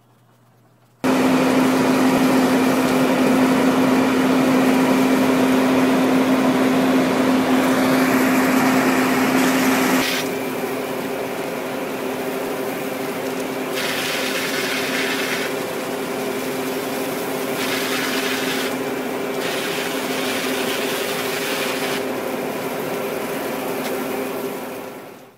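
Motor of a robot water cannon running with a steady hum. It starts suddenly, is loudest for about the first nine seconds, then runs a little quieter with several stretches of higher hiss before cutting off near the end.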